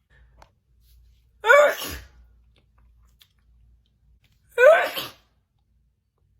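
A woman sneezing twice, about three seconds apart, during a messy sneezing fit. Each sneeze is a short, loud, voiced burst that rises and then falls in pitch, with a sharp spray of hiss.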